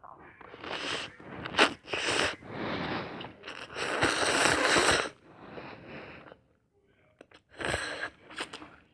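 A person slurping ramen noodles: several short slurps, then one long slurp of about a second and a half, a pause, and two more short slurps near the end.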